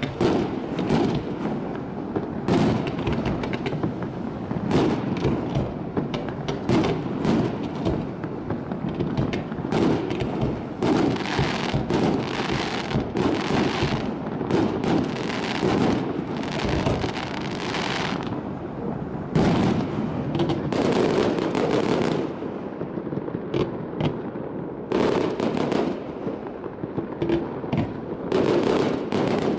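Fireworks display going off: a continuous run of bangs and crackling from bursting shells, in dense barrages through the middle, thinning out briefly about three-quarters of the way through before picking up again.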